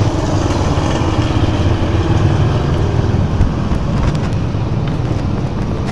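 A motor vehicle's engine running close by with road traffic noise; the engine hum eases after a couple of seconds.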